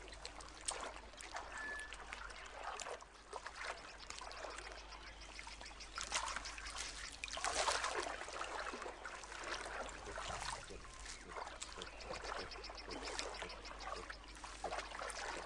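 Water splashing and trickling as monkeys wade through shallow water, an uneven run of small splashes that grows louder for a stretch about six to eight seconds in.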